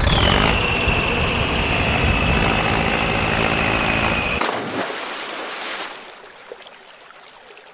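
A tractor engine running, with a steady high whine over it, that cuts off after about four seconds, leaving only the quieter rush of river water.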